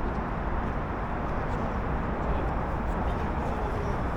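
Steady outdoor background noise with a strong low rumble.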